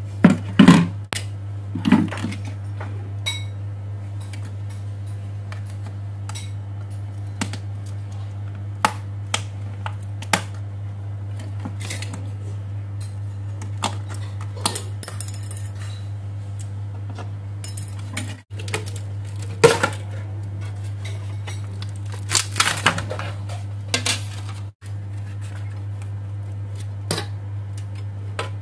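Metal hand tools scraping, clicking and clinking against the metal housing of an LED floodlight as it is pried apart. The sounds come as scattered short knocks and scrapes, the loudest near the start and again about three quarters of the way through, over a steady low hum.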